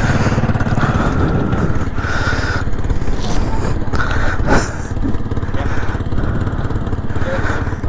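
ATV engines running as the quads ride slowly along a dirt track: a steady engine rumble, with a single knock or bump about four and a half seconds in.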